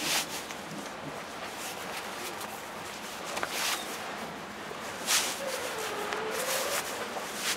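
Fabric rustling in short scrapes as a fleece balaclava and hood are pulled on over the head and tugged into place, over a steady hiss.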